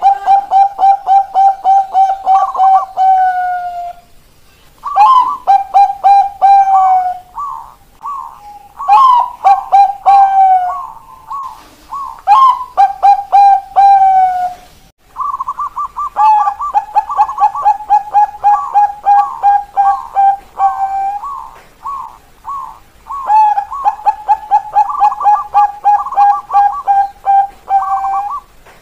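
Bangkok-bred zebra doves (perkutut) cooing their staccato 'keok kok kok kok' song. There are about six phrases, each a run of quick repeated notes, separated by short pauses.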